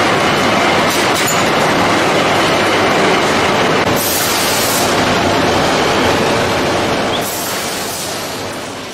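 Hot steel rolling mill running: a loud, dense clatter and rumble of red-hot bar going through the rolling stands and rebar on the cooling bed, with brief bursts of high hiss about four and about seven seconds in. It fades down near the end.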